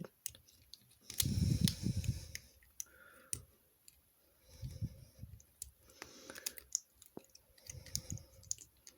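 Plastic LEGO bricks clicking and rattling as they are handled and pressed together, with scattered sharp clicks and a louder stretch of rummaging about a second in.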